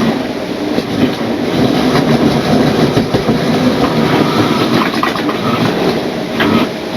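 Model Class 37 diesel locomotive running steadily along the layout's track, its wheels rattling and clicking over the rail joints, with a few sharper clicks near the end.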